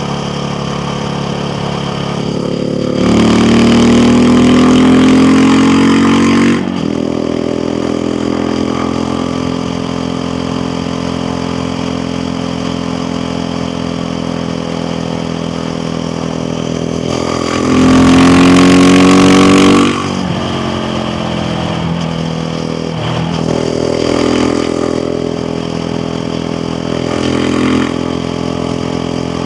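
KTM 690 Duke R's single-cylinder engine running steadily, opened up hard twice, about three seconds in and again a little past halfway. Each time the pitch rises for two to three seconds and then cuts off sharply, and smaller throttle rises follow near the end.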